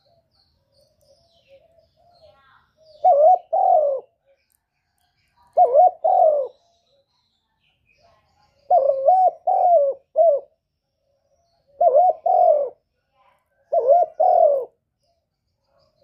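Spotted dove cooing: five short phrases two to three seconds apart, most of two notes and one of three.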